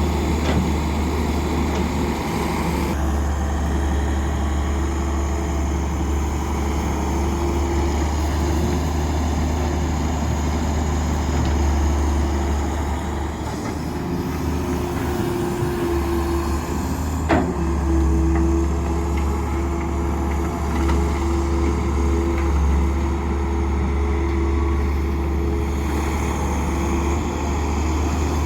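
Diesel engines of heavy construction machinery running steadily, a low continuous rumble with a single sharp click or knock about seventeen seconds in.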